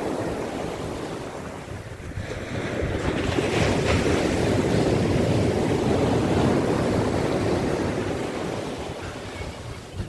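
Ocean surf: a wave breaks and washes up the beach, building from about two seconds in and slowly fading near the end.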